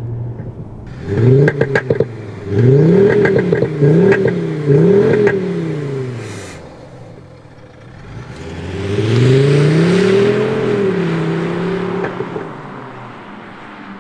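Mercedes-Benz CLS 400d diesel with a retrofitted active sound generator on its misfire profile: a muffled, smoky synthetic engine note blipped up and down about four times, with a crackle of pops among the revs. After a short lull the note rises again and holds as the car pulls away, then fades.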